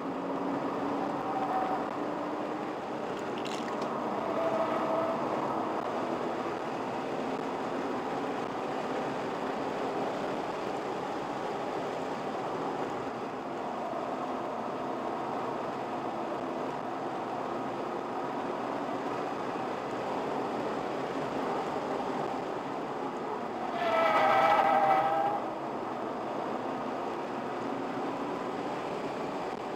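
Car engine heard from inside the cabin during a track lap, its note rising and falling with the throttle. A brief, loud, high-pitched squeal comes about 24 seconds in.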